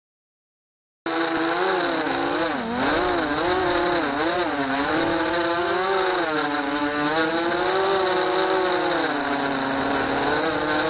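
FPV racing quadcopter's brushless motors and propellers buzzing in flight, heard from the camera on board. The sound starts abruptly about a second in, and its pitch swings up and down again and again as the throttle changes.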